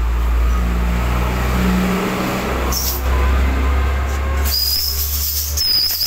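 Steady low mechanical hum, like a motor or engine running, which cuts out near the end as a hiss with short high whistling notes comes in.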